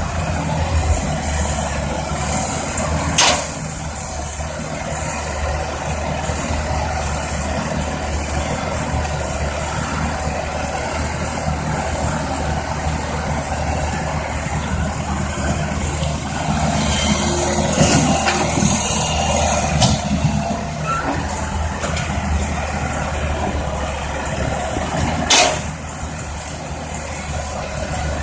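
Heavy diesel engine of a tracked excavator running steadily as it digs and loads soil into a dump truck, getting louder for a few seconds past the middle. There are two sharp clicks, about 3 seconds in and near the end.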